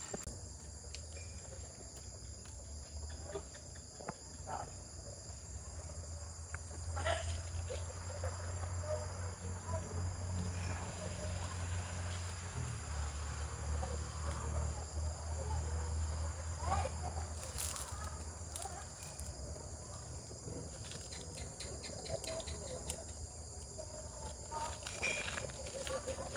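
Evening insects, crickets among them, chirring steadily at a high pitch, with scattered rustles and snaps of brush and dry grass as a person moves through the undergrowth.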